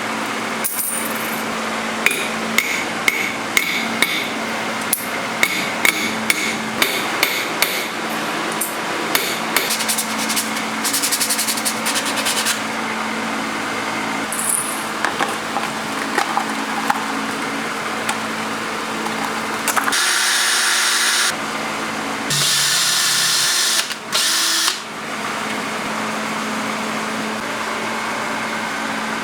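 Hammer blows on a coin, about two sharp strikes a second, beating it flat for a homemade spoon lure. Later a power tool runs in two short bursts, the second about two and a half seconds long, over a steady low hum.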